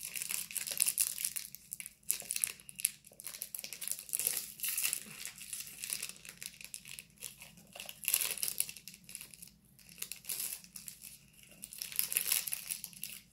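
Crinkly plastic wrapper of a chocolate bar being crumpled and torn open by hand, in irregular bursts of crackling.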